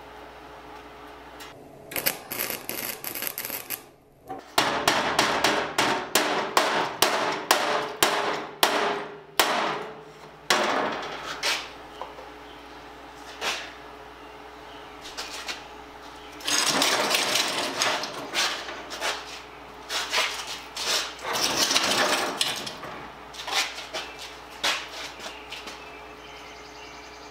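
Stick welder's arc crackling in stop-start bursts: a short run, then a string of brief sputtering strikes, then two longer continuous runs in the second half. The steel is badly pitted steel from an old fuel oil tank, and its pitting and rough edges make it weld poorly.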